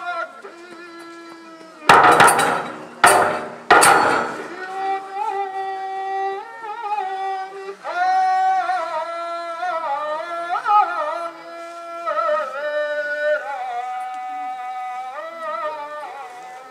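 Nanbu kagura music: long, wavering sung notes of a kagura chant, broken by three loud percussion strikes about two to four seconds in.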